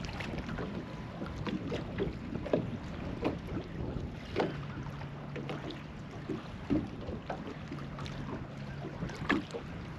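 Small waves slapping irregularly against the hull of a small fishing boat, with wind buffeting the microphone. A low steady hum comes and goes in the background.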